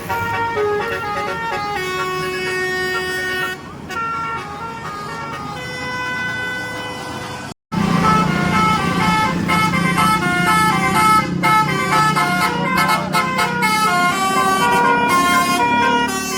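Indonesian bus basuri (telolet) multi-tone air horn playing a quick melody of stepped notes. It breaks off about seven and a half seconds in, then another bus's horn melody follows, louder, over a low engine rumble.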